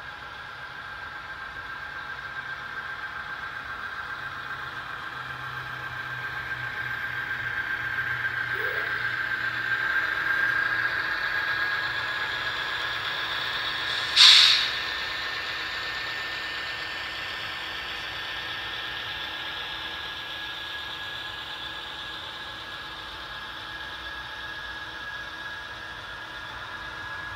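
Model freight train rolling past, a steady running noise with a constant whine; it swells as the mid-train BNSF diesel locomotives come by. About fourteen seconds in there is one short, loud hiss.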